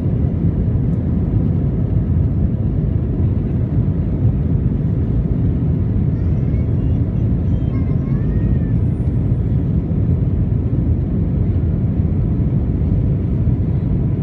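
Steady low rumble of an Airbus A321's jet engines and airflow heard inside the passenger cabin during the climb after takeoff.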